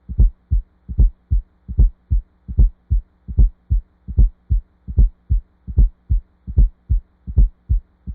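Heart sounds heard through a stethoscope: a regular lub-dub, two sounds per beat at about 75 beats a minute, the first of each pair louder, over a faint steady hum.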